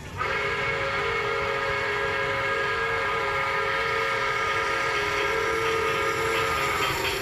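Toy train's electronic horn sounding one long held note of several tones at once, starting abruptly and cutting off about seven seconds in.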